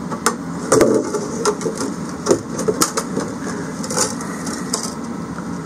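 Irregular clicks, taps and knocks as a plastic diesel heater fuel tank is handled and a small metal fitting is worked down a guide wire inside it toward the tank's hole.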